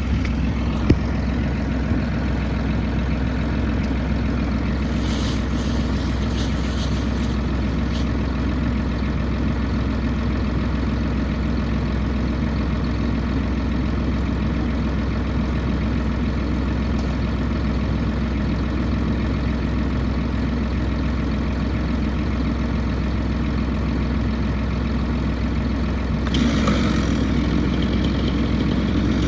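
Tractor engine idling steadily, with a few sharp clicks in the first several seconds. It gets a little louder near the end.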